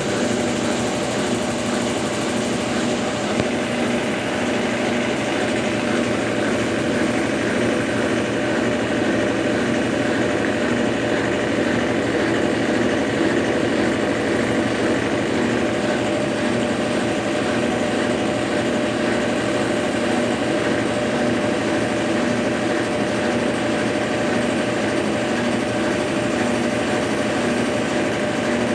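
Consul Facilite 10 kg top-loading washing machine running steadily during its rinse and spin cycle, a continuous motor hum with a faint regular pulse.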